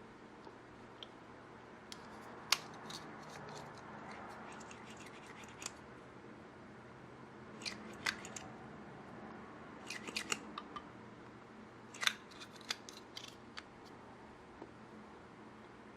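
Scissors snipping in irregular short clusters of sharp clicks, over a low steady hiss.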